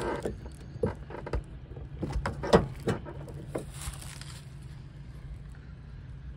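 Fiberglass hood of a 1987 Chevrolet Monte Carlo SS being unlatched and lifted: a run of sharp clicks and knocks from the hood latch and hinges, the loudest about two and a half seconds in. A steady low hum runs underneath.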